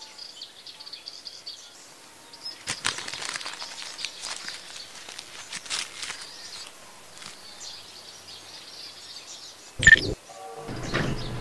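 Outdoor woodland ambience with faint high chirping, then rustling and crackling of dry leaves and twigs. Just under ten seconds in comes one sharp click as a vintage portable TV's knob is turned. It is followed by a steady low electrical hum as the set switches on.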